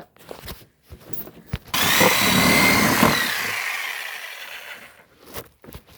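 A handheld power tool starts suddenly and runs loudly for about a second and a half, then its whine falls away as it winds down over about two seconds. A few light knocks and rattles come before it.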